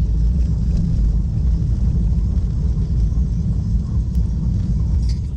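Loud, steady low rumble of a vehicle driving.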